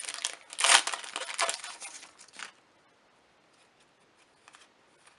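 Foil wrapper of a Magic: The Gathering booster pack crinkling and tearing in noisy bursts, stopping about two and a half seconds in; after that only a few faint ticks.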